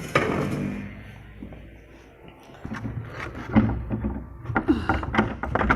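A locked door being unlocked and worked open: a sharp clack, then a run of metallic clicks, rattles and knocks over a low rumble for the last few seconds.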